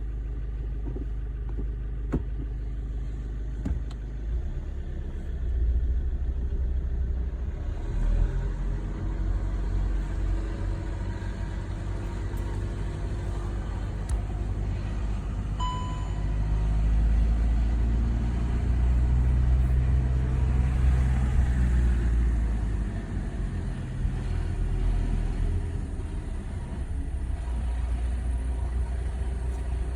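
Škoda Octavia III car running with a steady low rumble that swells and eases; the owner hears a strange noise from it but does not say what it is. A brief high beep sounds about halfway through.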